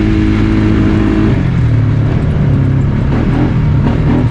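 Polaris Sportsman ATV engine running under way; its engine speed drops about a second and a half in and holds steady at the lower pitch.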